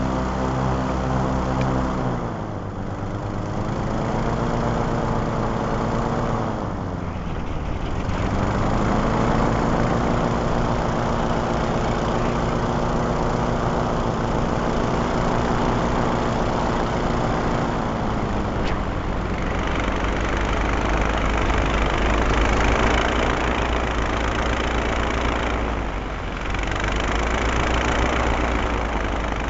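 Twin-engine airboat's motors and propellers running, the engine pitch dipping and picking up again several times as the throttle changes.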